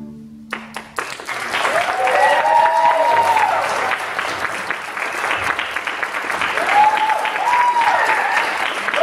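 A string quartet's final chord cuts off, and about a second later the audience breaks into sustained applause, with two drawn-out cheers rising and falling over the clapping.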